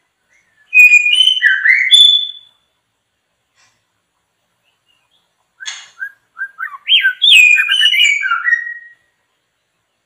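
A songbird singing two loud phrases of rapid, varied whistled notes a few seconds apart, the second phrase opening with a short harsh note.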